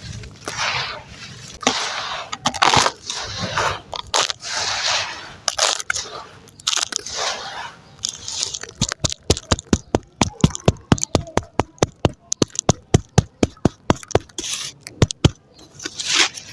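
Crunchy red sand crumbling and grinding with a gritty scraping. About halfway through it turns into a quick run of sharp, crisp snaps, several a second.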